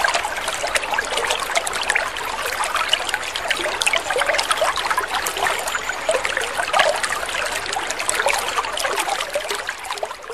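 A fountain spout pouring a steady stream of water into a swimming pool, splashing continuously on the surface.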